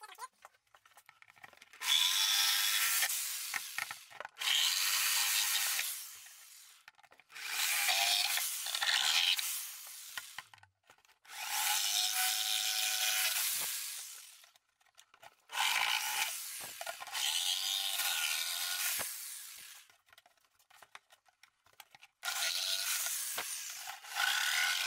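A power tool cutting into the plastic of an unbreakable RC truck body, in six bursts of about two to four seconds with short pauses between.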